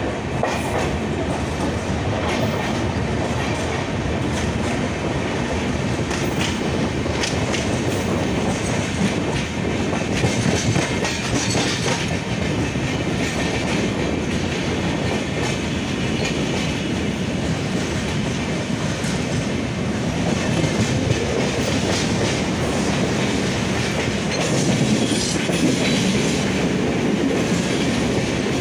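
Gatimaan Express passenger coaches running along the track, a steady rumble with wheels clattering over rail joints. The clatter comes louder about ten seconds in and again near the end.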